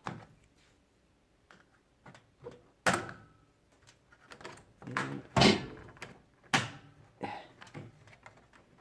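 Plastic clips of a microwave door's casing popping and snapping as the casing is pried off by hand: a series of sharp clicks and knocks, the loudest about halfway through.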